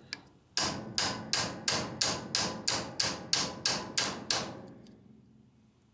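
A hammer striking a punch against a seized gear retaining pin, about a dozen evenly paced blows at roughly three a second, each with a short ring. The pin has been soaked in penetrant and still won't budge.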